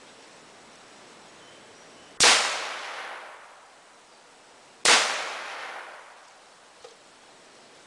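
Two gunshots about two and a half seconds apart, each followed by a long echo that fades away.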